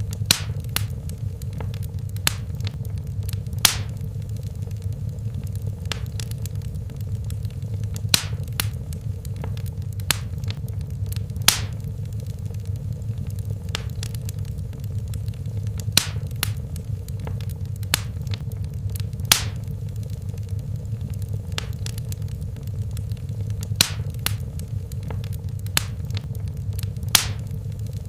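Fire crackling in a fireplace: sharp, irregular pops every one to four seconds over a steady low rumble of the flames.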